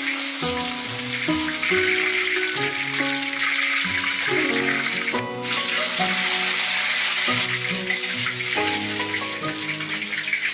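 Background music playing a melody of held notes over a steady hiss of sizzling or running water, which breaks off for a moment about halfway through.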